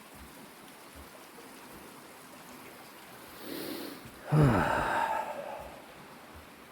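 A person draws a breath and, about four seconds in, lets out a long voiced sigh that falls in pitch, over the faint steady sound of running stream water.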